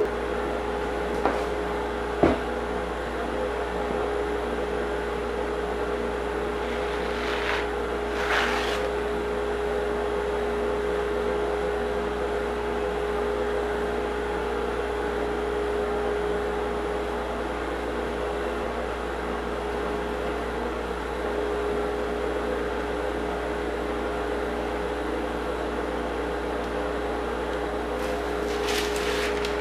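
Electric random orbit sander running steadily on a heart pine floor, a constant motor hum with a steady tone. A couple of light clicks come near the start, and brief swishes about eight seconds in.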